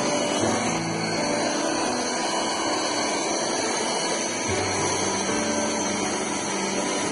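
Tramontina 42350/070 vacuum cleaner running steadily: a constant rush of air with a steady high motor whine.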